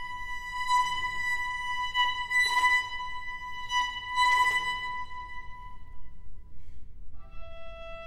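String quartet playing a contemporary piece: a single high bowed note is held steady, with several brief swells of noise over it, then fades out about six seconds in, and a lower bowed note enters about a second later.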